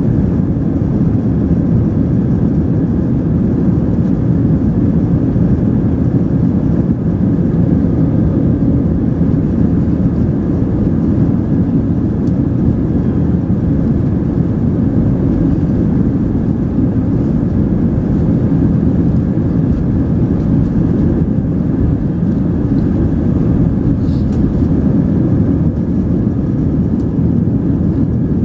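Airliner cabin noise during the takeoff roll: a loud, steady low rumble from the engines at takeoff power and the aircraft rolling down the runway, heard from inside the cabin.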